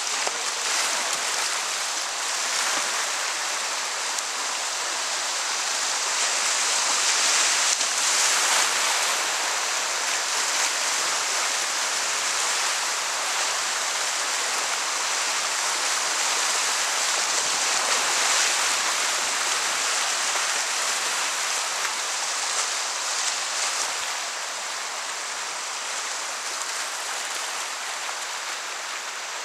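Fast whitewater river rushing over rocky rapids, heard from water level in a kayak: a steady, loud hiss of flowing water.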